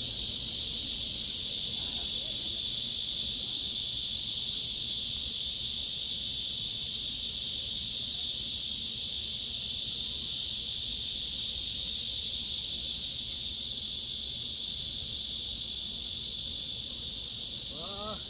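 Cicadas droning in one steady, unbroken high-pitched chorus, like a dense hiss with no pulses or breaks.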